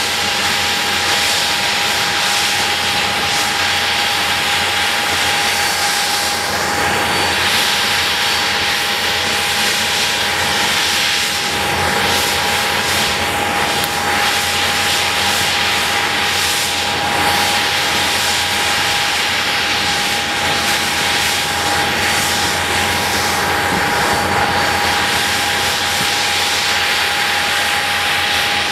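Handley Page Victor K.2's Rolls-Royce Conway turbofan engines running steadily on the ground. A continuous rushing jet noise carries a constant high whine.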